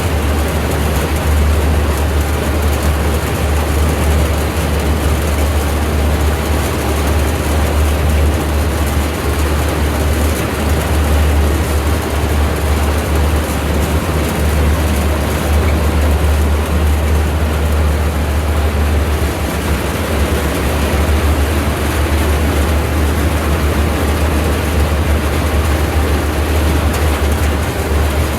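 Tractor engine running steadily with a deep, constant low rumble.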